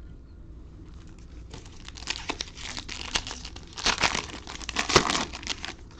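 A foil trading-card pack wrapper being torn open and crinkled by hand: a dense run of crackling and tearing that starts about a second and a half in, is loudest near the end, then stops.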